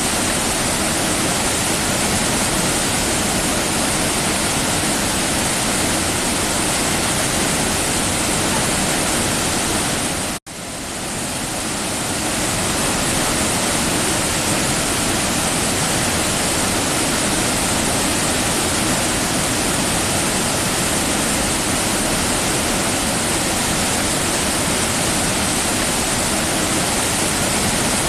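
Steady, loud rush of a waterfall. About ten seconds in the sound cuts out for an instant and then swells back up over a second or two.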